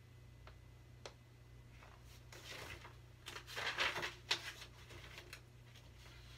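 Paper rustling as a picture book is opened and its pages handled and turned, loudest about three to four seconds in, after two faint clicks near the start.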